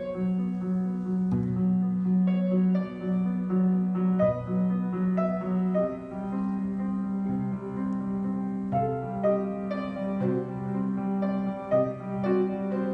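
Piano playing a steady stream of separate notes over a held low note that breaks and resumes every second or so, in a slow, moody contemporary classical piece.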